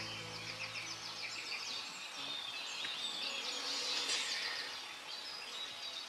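Springtime dawn chorus in broadleaf woodland: many birds singing at once, overlapping chirps and trills.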